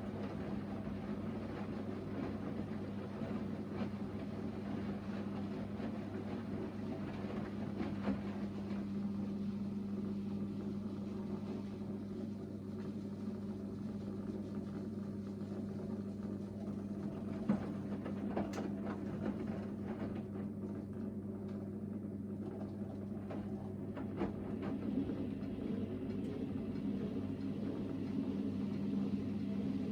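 Hoover VHD 9163 ZI washing machine's drain pump running steadily, pumping the rinse water out of the drum. It makes a constant low hum, with a few faint knocks from inside the machine.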